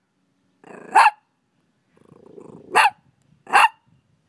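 Dachshund puppy barking three times, a low growl leading into each of the first two barks.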